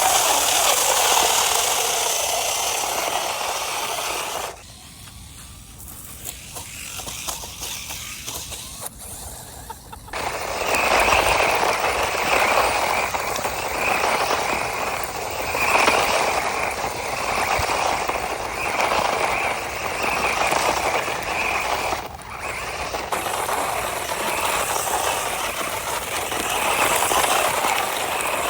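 High-speed RC toy car running, its motor and wheels making a busy mechanical noise with a steady high whine through the middle stretch. The sound drops suddenly about four seconds in and comes back loud near the ten-second mark.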